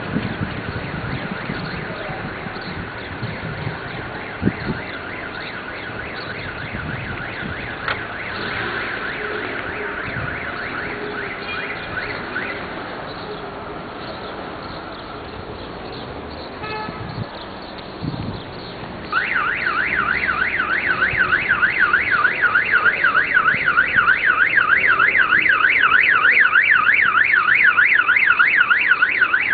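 Car alarm sounding: first a steady high-pitched tone that fades away about halfway through, then, after a short lull, a louder fast warbling tone that sweeps rapidly up and down.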